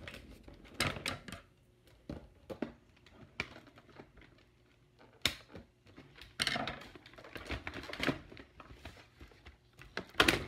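Scissors snipping and cardboard toy packaging being handled as an action figure is cut free of its box: scattered clicks and rustles, a denser stretch of scraping and crinkling a little past the middle, and a louder knock near the end.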